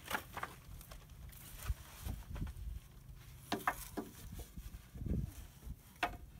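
Thin wooden sticker strips handled and set down across freshly sawn boards on a pallet: a few light wooden knocks and clacks, spaced a second or two apart.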